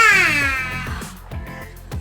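A single loud, high, drawn-out vocal call that slides down in pitch over about a second and fades, over background music with a steady beat.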